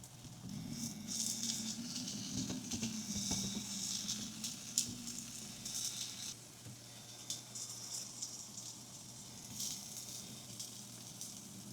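Food frying in a pan: a steady crackling sizzle with scattered light clicks and taps.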